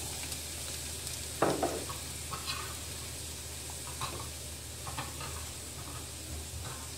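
Chopped onion sizzling in hot oil in a frying pan: a steady hiss with a few short pops and crackles.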